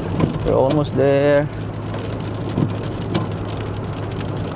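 Heavy rain pattering on the car's roof and windshield over steady engine and road noise, heard from inside the cabin, with scattered sharper drop ticks. A short voice sounds in the first second and a half.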